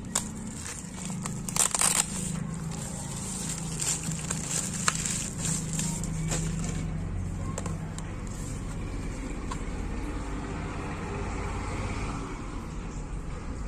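Plastic bubble-wrap pouch crinkling and crackling as it is handled and a laptop battery is slid out of it, busiest in the first six seconds, then settling into quieter handling noise over a steady low background hum.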